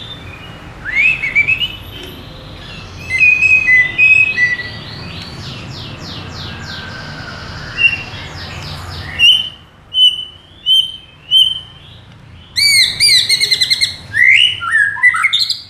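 White-rumped shama singing a loud, varied song: rising whistled sweeps, a rapid run of notes, a string of repeated whistles, then fast chattering phrases near the end.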